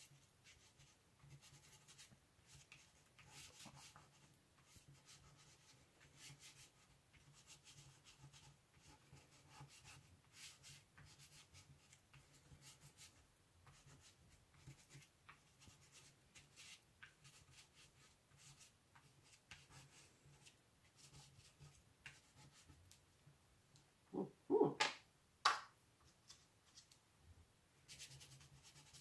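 Chalk pastel scratching and rubbing on paper as colour is laid in with short strokes, faint and uneven. Three short louder sounds come close together about 24 seconds in.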